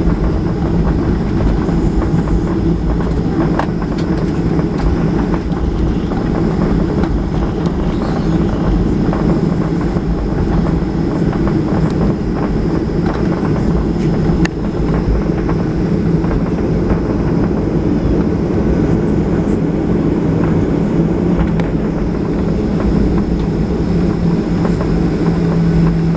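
Boeing 737-800 with its CFM56-7B jet engines running, a loud, steady rumble with a held low tone, with faint clicks and rattles scattered through it.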